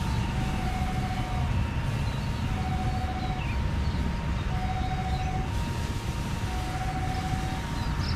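A hi-lo two-tone siren, a lower and a higher note taking turns about every second, over the steady low rumble of an airliner's jet engines on the runway.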